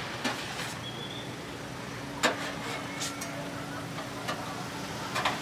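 Metal spatula scraping and tapping on a crepe griddle: a few sharp clicks, the loudest about two seconds in. Under it runs a steady hum like street traffic.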